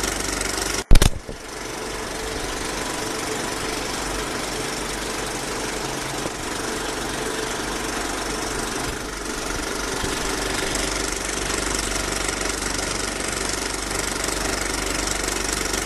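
Steady mechanical running noise with a constant low hum, broken by one sharp, very loud click about a second in.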